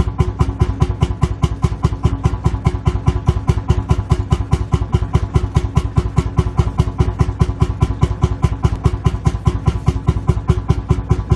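Lanz Bulldog tractor's single-cylinder two-stroke hot-bulb engine idling, an even thumping of about five or six beats a second.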